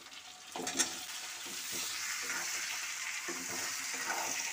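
Raw potato chunks tipped into hot oil in a steel kadai: a clatter as they land, then steady sizzling as they fry, with a metal spoon stirring them in the pan.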